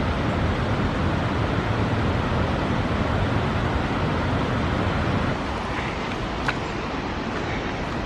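Steady rushing of a mountain waterfall or cascade, a broad even roar that drops slightly in level about five seconds in.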